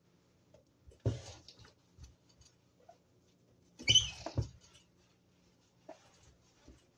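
A damp scrub sponge rubbing and knocking against a Sunbeam toaster's casing in short strokes, with a brief high squeak of the sponge on the shell about four seconds in, the loudest moment.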